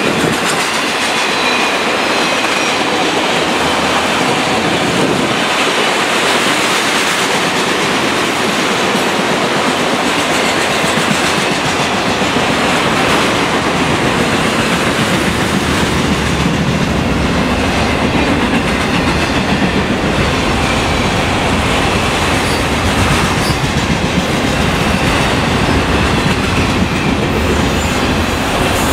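Freight train of enclosed autorack cars rolling past, steel wheels running on the rails with a loud, steady rumble and clatter.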